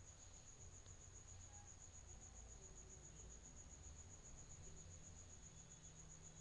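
Near silence: faint room tone with a low hum and a steady, faint high-pitched whine.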